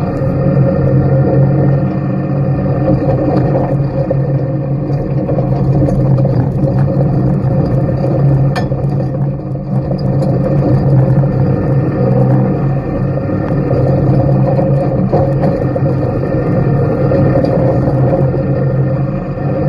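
Off-road race vehicle's engine running at steady revs, heard from inside the roll-caged cockpit, with light rattles and a sharp click about eight and a half seconds in.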